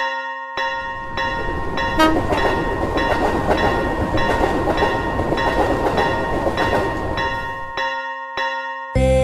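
Railway level-crossing warning bell ringing while a train passes, from about half a second in to about eight seconds, with rhythmic rail clatter. There is a short horn toot about two seconds in.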